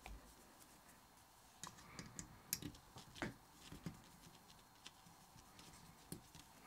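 Faint, scattered small clicks and taps of an Allen key turning and seating the small screws in the metal base of a condenser microphone's body.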